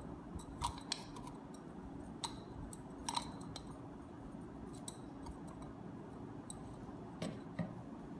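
Light, scattered metallic clicks and taps as a silicone pastry brush works oil around the inside of a brass murukku press cylinder, over a steady low background hum.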